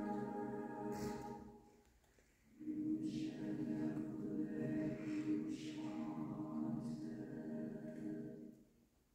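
Mixed chamber choir singing sustained chords, with crisp sibilant consonants. The choir breathes about two seconds in, starts a new phrase, and releases it near the end.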